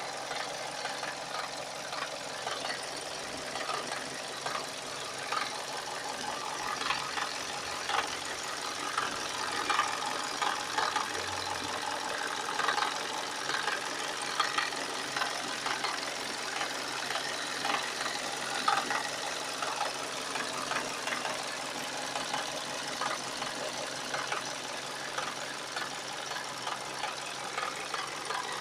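Hyundai ix35 engine running warm with a knock running through it: many small, sharp knocks over a steady engine note. It is the knock when hot that the owner is documenting.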